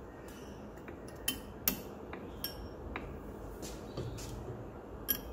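Irregular light metallic clicks and clinks, about six of them, as the outer front brake pad and its steel clip are worked into place on the brake.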